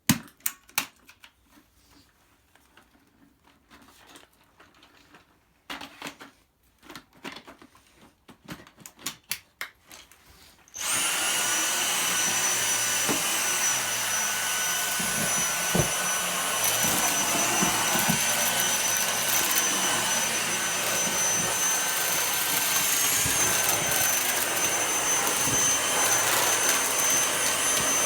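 Light clicks and knocks of handling, then about ten seconds in a Dyson V6 Slim cordless stick vacuum switches on and runs steadily with a high-pitched whine.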